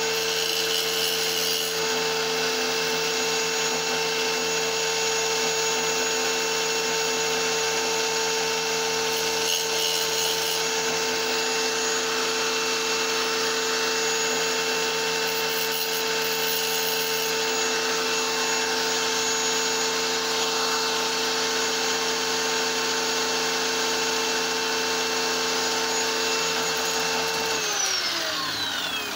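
Small electric wet tile saw running at a steady pitch while a piece of rock is cut to make dice. Near the end it is switched off and the motor winds down in a falling whine.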